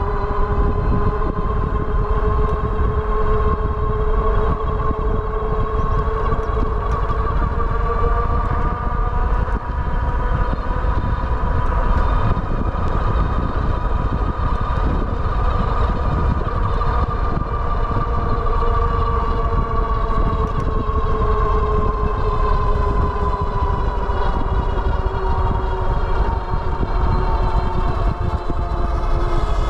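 Electric hub motors of a Wallke H9 all-wheel-drive e-bike whining steadily under power. The pitch rises slowly and then sinks again as the speed changes. Heavy wind rumble on the microphone runs underneath.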